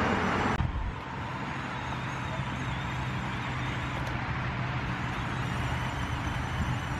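Battery-powered ride-on toy car running, its small electric motors and gears giving a steady low hum. A louder rush of noise cuts off suddenly about half a second in.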